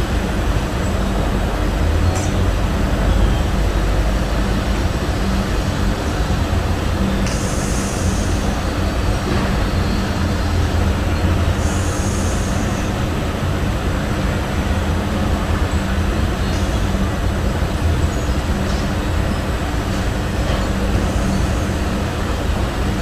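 Domestic cat snoring in its sleep: a steady low rumble, with two brief hissing sounds near the middle.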